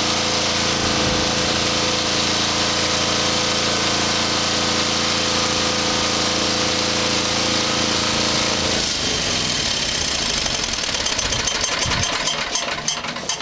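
Diesel generator engine running steadily, then shut off about nine seconds in. The engine tone cuts out and it winds down to a stop with a run of clicks, getting quieter near the end. This is a deliberate shutdown of the newly repaired generator.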